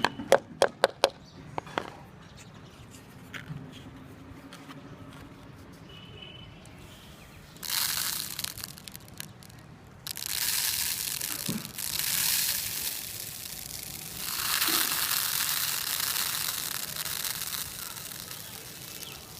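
Millet bird seed being cleaned of its husks: about five sharp taps in the first second or two, then long stretches of dry rustling hiss as the seed and chaff are worked.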